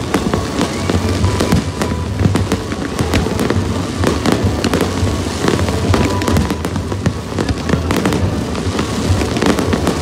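Fireworks display going off: a dense run of bangs and crackles from bursting shells, with no break.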